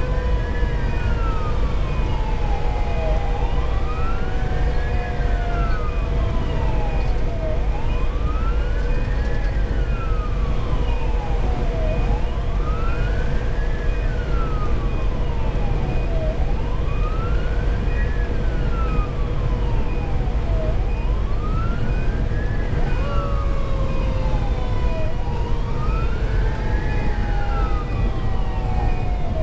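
A fire engine's siren wails, heard from inside the cab of a 2010 Pierce Velocity pumper running on a call. The pitch sweeps up and back down about every four and a half seconds, with a second, steadier whine sliding slowly down in pitch. Under it runs a constant low rumble of diesel engine and road noise.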